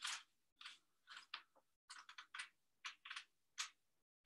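Faint, scattered light clicks and knocks, about a dozen, with near silence between them; the first, right at the start, is the loudest.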